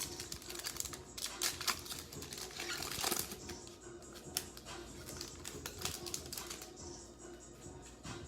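A football trading card pack being opened and its cards handled: the wrapper crinkles and tears, with many small clicks and flicks of card stock, busiest in the first few seconds.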